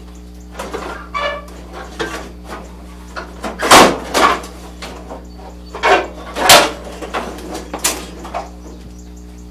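Sheet-metal clunks and clatter as the 1981 Ford Bronco's grille and radiator support assembly are worked loose and pulled off the front end, with the two loudest knocks about four and six and a half seconds in. A steady low hum runs underneath.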